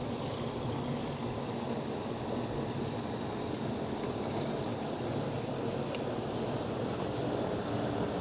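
Water pouring steadily, for priming the pool pump.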